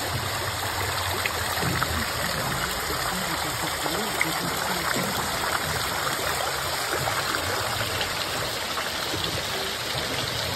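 Water dripping and trickling from a mossy cliff overhang into a lake: a steady splashing patter made of many small drops.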